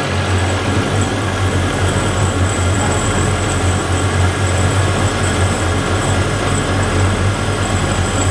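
Vertical milling machine running with a larger end mill cutting deeper into a metal sleeve, mist coolant spraying on the cut: a steady low hum under an even hiss, with a faint high whine, unchanging throughout.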